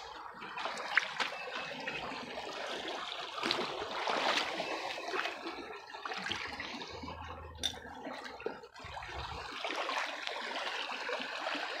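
Shallow creek water running and trickling over gravel, with splashing as a hand rummages in the streambed and a few sharp clicks scattered through it.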